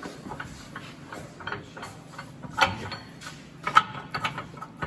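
Scattered metal clicks and clinks of hand tools and parts being worked on a pickup's front suspension, with two sharper knocks, one about two and a half seconds in and one near four seconds.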